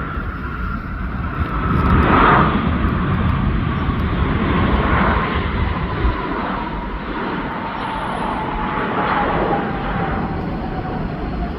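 Jet airliner's engines running loud and steady as it passes, a rumble that swells and eases, with an engine whine that slides slowly down in pitch.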